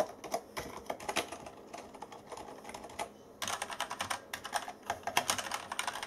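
Typing on a Tesoro Lobera keyboard with plunger-type membrane switches: soft, muted key presses for about three seconds. After a short pause, typing on the Tesoro Lobera Supreme with Kailh Brown mechanical switches: louder, brighter and denser key clacking.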